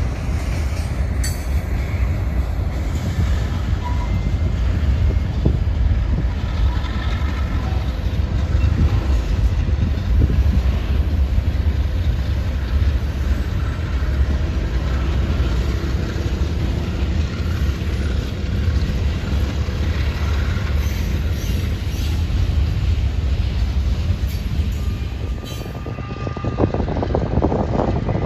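Freight train of autorack cars rolling past: a steady low rumble of wheels on rail, with faint clicks and brief light squeals. The rumble drops off near the end.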